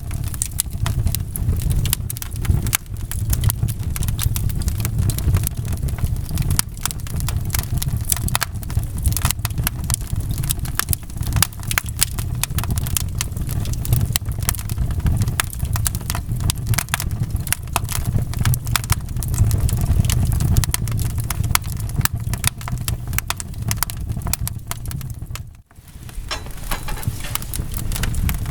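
Wood fire in a fireplace crackling, with a dense run of sharp pops and snaps over a steady low rumble of burning. Near the end it cuts out for a moment and comes back.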